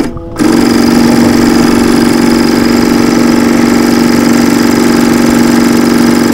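Vintage industrial sewing machine running flat out, stitching a denim belt-loop strip: a fast, steady mechanical run that starts about half a second in and stops abruptly at the end.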